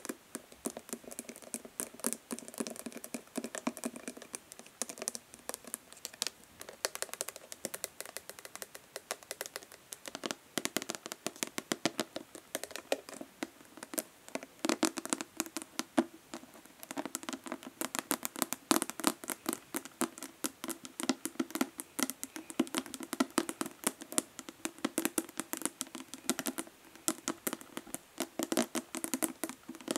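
Fingernails tapping fast and hard on a plastic body lotion bottle: a rapid, uneven stream of sharp clicks, at times with a hollow knock from the bottle's body.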